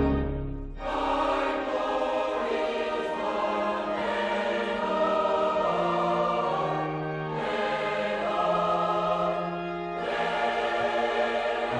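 Choir singing sustained chords in phrases. There are brief breaks between phrases about a second in, about seven seconds in and about ten seconds in.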